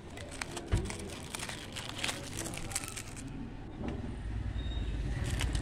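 Crackling and clicking of a photo album's plastic sleeves as its pages are handled and turned, then a road vehicle's engine running, growing louder from about four seconds in.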